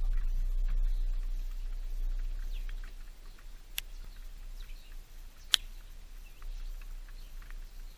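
Small garden birds at a peanut feeder, with scattered short high chirps and ticks throughout and two sharp clicks, one near the middle and one about two seconds later. A low rumble fades out about three seconds in.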